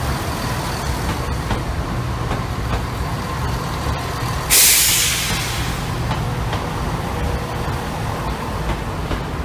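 CrossCountry Class 170 Turbostar diesel multiple unit moving past along the platform with a steady low rumble. About halfway through, a sudden loud hiss of released air, like an air brake venting, fades away over a second.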